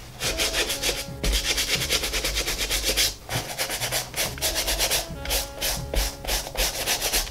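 Stiff bristle brush scrubbing foam cleaner firmly into a white leather loafer, in quick back-and-forth strokes with a couple of brief pauses.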